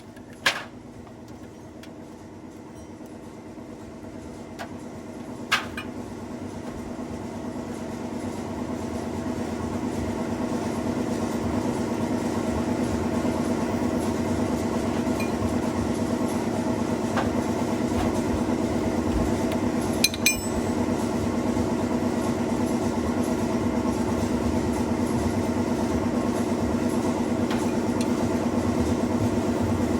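Engine of a công nông farm truck running with a steady hum that grows louder over the first ten seconds and then holds, with a few sharp metallic clinks.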